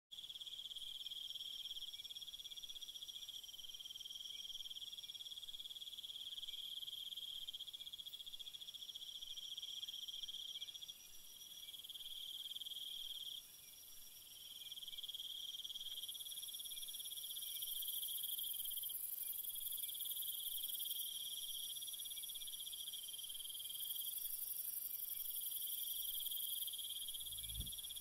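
A steady, high-pitched chirring insect chorus, like crickets, in several overlapping shrill tones that swell and fade in stretches, with a brief dip a little before halfway. A low thud comes near the end.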